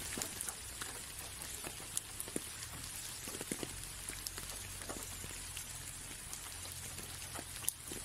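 Light rain on a window pane: a steady hiss with scattered ticks of single drops striking the glass, and a sharper tap about two seconds in and again near the end.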